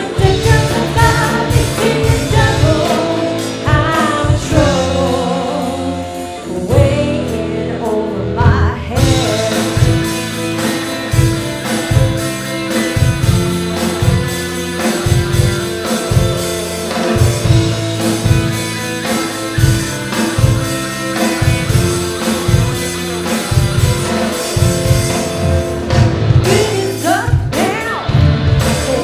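Indie rock band playing live: drums, bass guitar, electric guitar and keyboard, with a lead voice singing through the first several seconds and again near the end.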